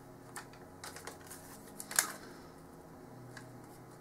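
Scattered light clicks and taps from hands working a thermal pad strip and its backing paper over a motherboard, with one sharper click about two seconds in.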